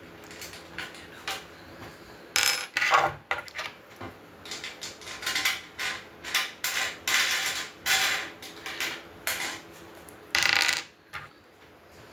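Metal grill parts and hardware clinking, knocking and scraping together as they are handled and fitted during assembly, in irregular bursts.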